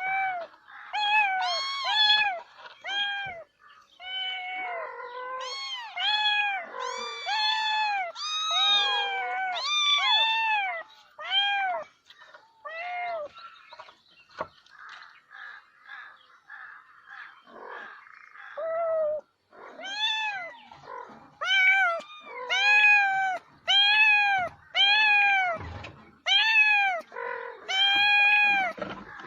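Domestic cats meowing repeatedly, a run of short rising-and-falling meows, some overlapping as from more than one cat, thinning out midway and then coming in a steady series again near the end.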